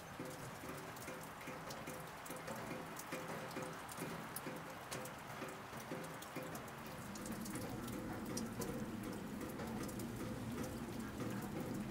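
Scattered patter of dripping water, small drops falling at irregular intervals, over a faint low hum that grows a little louder about seven seconds in.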